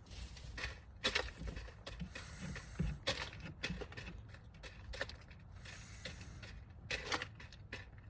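Chicken snoring in its sleep: short, noisy breath sounds about every two seconds, some drawn out into a high hiss.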